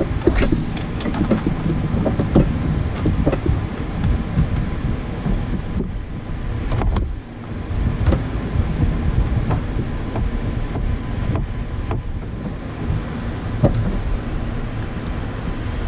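Scattered clicks and knocks of a hand wrench working the bolts of a front engine snub mount, over a steady low rumble of wind on the microphone.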